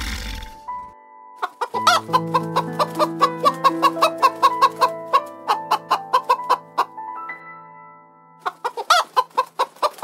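An animal's rapid clucking calls, about four to five a second, in a long run and then a second, shorter run near the end, over soft background music with sustained notes.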